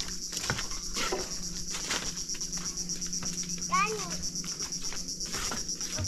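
Steady, high-pitched insect chorus with a rapid pulse, with scattered short knocks and one brief falling call about four seconds in.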